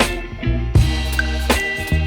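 Background pop music with a steady drum beat and bass, in a gap between sung lines.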